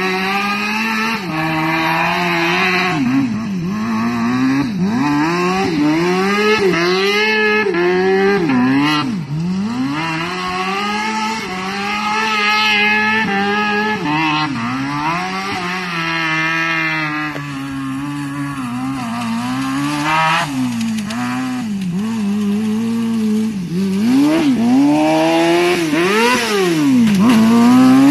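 Engine of a modified, fast ride-on lawn mower revving up and down over and over as it is driven hard across grass, its pitch rising and falling every second or two, with one long high rev near the end.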